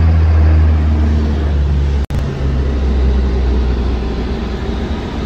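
Loud, steady low rumble and rushing hiss of wind buffeting a phone's microphone, with a momentary dropout about two seconds in.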